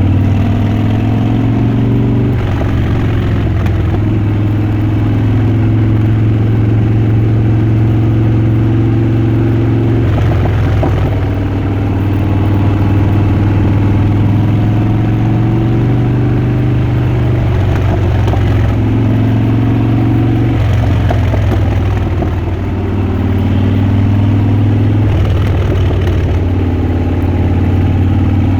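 Harley-Davidson Dyna Switchback's air-cooled V-twin engine and exhaust running, its note stepping up and falling back several times as the throttle is opened and eased.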